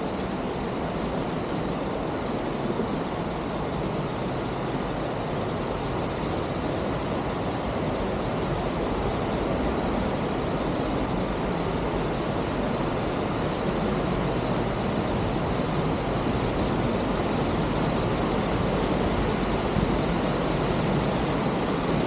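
Steady rushing of a waterfall, its falling water making a continuous even roar that grows gradually a little louder.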